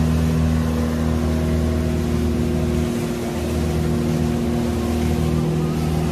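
The engine of an outrigger boat (bangka) running steadily under way: a constant low drone with water and wind noise over it. It dips briefly about three seconds in.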